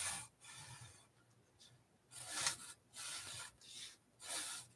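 Sharpie marker tip rubbing across paper in short drawing strokes, about six of them, with a pause of about a second after the first two.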